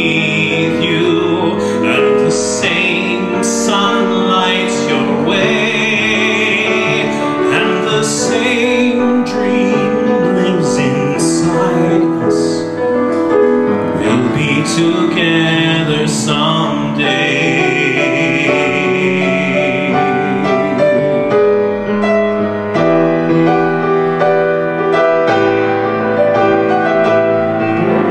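Male singer singing with piano accompaniment, holding long notes with vibrato.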